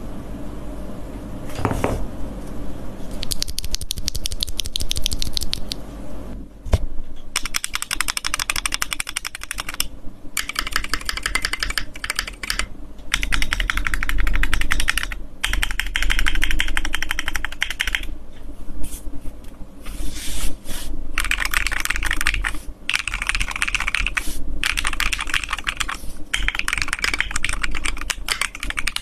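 Fast typing on a FirstBlood B67 mechanical keyboard with a transparent acrylic case, gasket mount and Kailh switches: rapid key clacks in bursts of a few seconds with short pauses between, beginning about three seconds in after a single knock.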